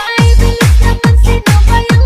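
Electronic dance music: a steady kick drum about twice a second under held synth notes.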